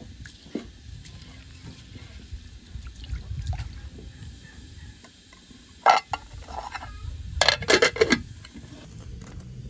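Hand swishing rice in water in a stainless-steel pot, with water dripping off the fingers. In the second half comes one sharp metallic clank, then a short rattle of clanks as the pot's steel lid is set on; these are the loudest sounds.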